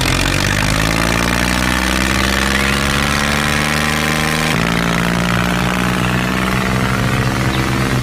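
Tractor engine running. Its pitch rises slowly over the first few seconds, then jumps about halfway through and holds steady.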